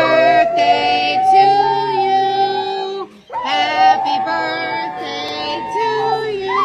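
Music with high-pitched singing: long held notes that glide slightly, with a short break about three seconds in.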